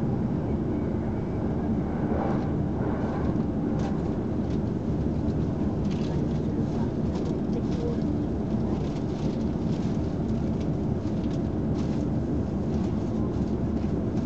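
Steady rumble of a passenger train running at speed, heard from inside the carriage: wheels on rail and running gear, with faint scattered ticks in the second half.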